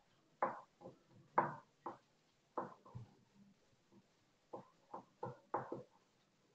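Vegetable peeler scraping the skin off a potato in short, irregular strokes, about ten of them.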